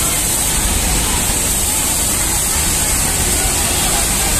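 Steady hum and hiss of a garment factory floor, with industrial sewing machines and other machinery running.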